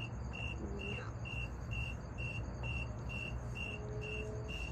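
Cricket chirping steadily, about two high chirps a second, over a low steady hum.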